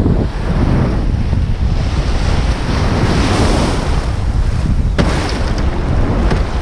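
Shallow surf washing and breaking around a kayak being launched and paddled out, with heavy wind buffeting on the microphone. A single sharp knock about five seconds in.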